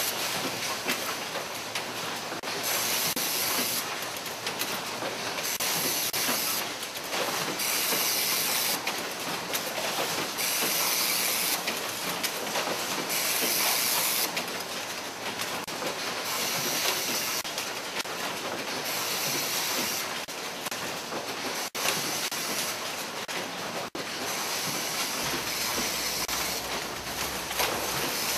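Automatic syringe production machinery running: a dense, continuous mechanical clatter with a high pneumatic hiss that comes and goes every few seconds.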